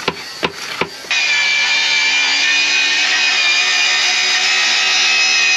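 A few short, sharp hand strokes on the hull. About a second in, a handheld electric power tool starts suddenly and runs steadily with a high whine.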